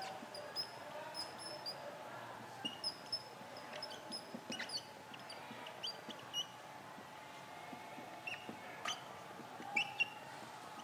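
Whiteboard marker squeaking in short, high chirps as words are written on the board, with a few light taps of the pen tip.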